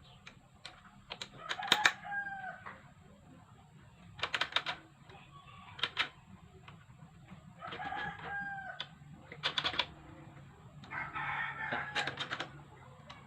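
Rooster crowing, twice around two and eight seconds in and again near the end, with short sharp clicks in between from tools and engine parts being handled.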